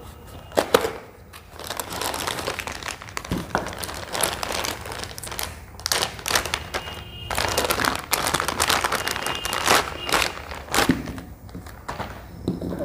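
Packaging crinkling and rustling with many small clicks and crackles as a boxed e-bike display is unwrapped by hand.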